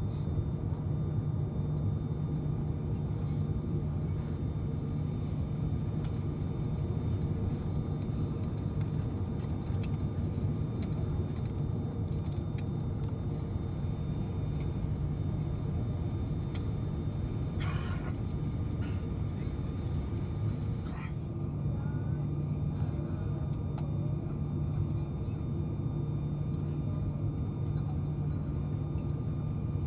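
Steady cabin hum of an Airbus A340 taxiing after landing, its engines running at low power, with several steady tones over the rumble. Two brief clicks come about two-thirds of the way through.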